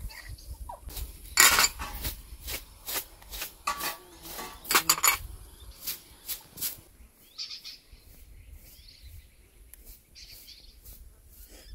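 Pots and dishes clattering as they are handled, a run of sharp clinks and knocks, loudest about a second and a half in and about five seconds in. In the quieter second half, a bird chirps briefly twice.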